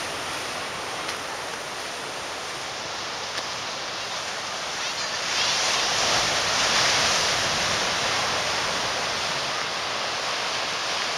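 Pacific surf breaking on a rocky shore: a steady rush of waves that swells louder about halfway through, then eases off a little.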